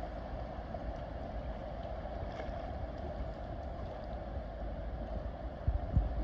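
Steady wind noise buffeting the phone's microphone outdoors, a low rumble with an even hiss over it, and a couple of short low thumps near the end.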